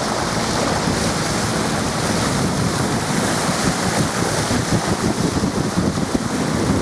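Wind buffeting the microphone over water rushing past the hull of a boat under way, a steady rough noise with gusty flutter.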